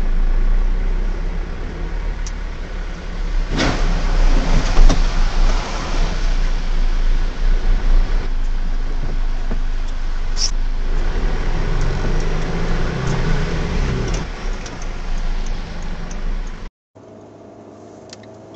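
Steady rumble of car engine and road noise picked up inside the cabin by a dashcam microphone, with a louder, rougher stretch about four to five seconds in and a brief high-pitched sound about ten seconds in. About seventeen seconds in it cuts off to a much quieter drone.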